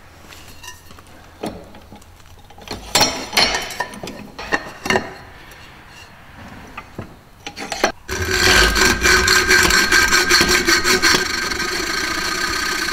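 Knocks and clinks as a square-tube bar is clamped in a bench vise, then, from about eight seconds in, a hacksaw cutting through the metal tube with a steady rasping and a ringing tone from the bar.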